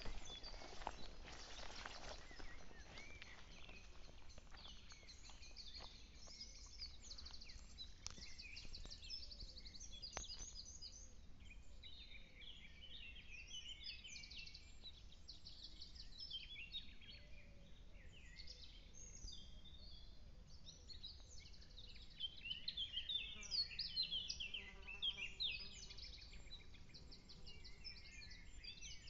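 Small birds singing and chirping, many quick high notes throughout. Footsteps rustle on a dirt path for the first couple of seconds, and a lower pitched call with overtones comes in briefly about three quarters of the way through.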